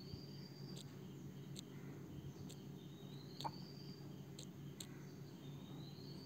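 Faint background ambience: a steady low hum, a high rising chirp about a second long that repeats roughly every two and a half seconds, and scattered light clicks.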